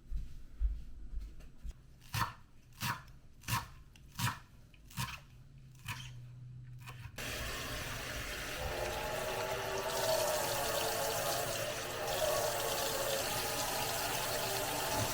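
A few sharp knocks, then about seven seconds in a tap is turned on and water runs steadily into a sink.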